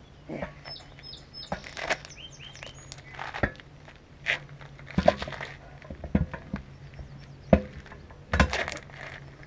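Knocks, thuds and rubber scuffs as a heavy truck tire is handled and lifted onto the metal post of a homemade tire machine, with the loudest thumps in the second half. A bird chirps a few times in the first few seconds.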